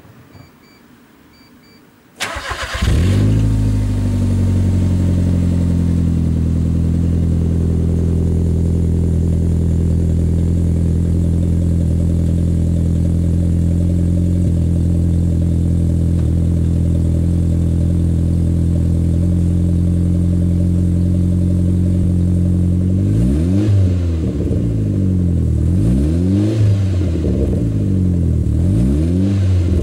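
Mitsubishi Colt CZT's turbocharged four-cylinder engine heard at a custom 63.5 mm full exhaust with downpipe. It is started about two seconds in and the idle drops and settles to a steady idle. Near the end it is blipped in several quick revs.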